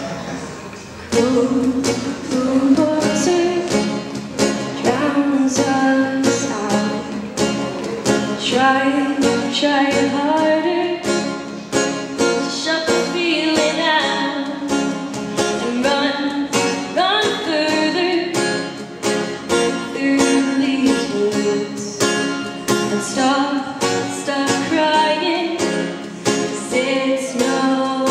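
A woman singing live over her own strummed acoustic-electric guitar, a roundback model with small epaulet soundholes, played solo through a PA. The guitar and voice come in fully about a second in.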